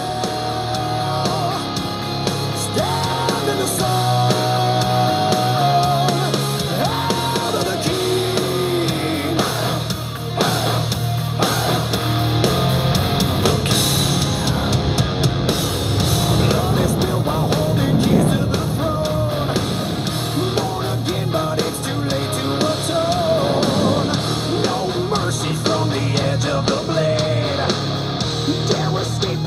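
Rock music with a singing voice and guitar, playing steadily.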